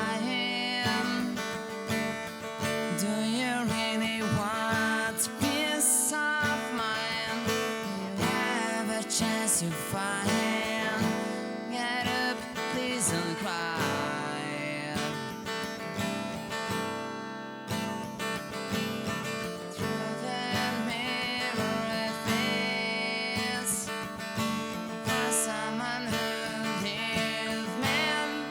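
Music: an instrumental passage of a song, acoustic guitar strumming under a gliding melody line.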